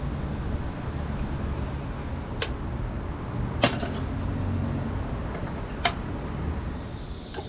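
Steady low rumble of city road traffic heard from a rooftop, with three sharp clicks spread through it.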